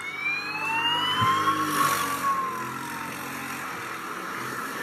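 Police siren wailing: one slow rise in pitch for about two seconds, then a slow fall, over a steady hiss of background noise.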